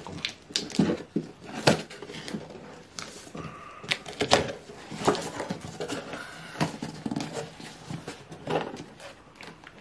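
A small cardboard shipping box being opened and handled by hand: irregular crackles, knocks and scraping rustles of cardboard.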